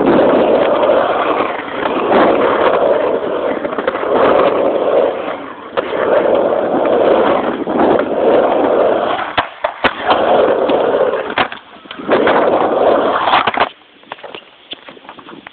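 Skateboard wheels rolling hard on a ramp in about seven swelling passes, each a second and a half or so, with sharp clacks between them. The rolling stops abruptly near the end, leaving a few faint clicks.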